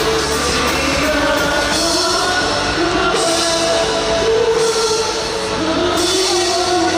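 Live rock band playing loudly, with drums, electric guitars and a sung vocal line holding long notes.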